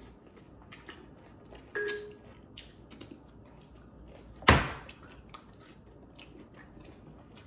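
Close-up eating sounds of crisp cucumber slices being bitten and chewed, with many small crunches and wet mouth clicks. A brief clink with a short ring comes about two seconds in, and a single loud sudden thump about halfway through is the loudest sound.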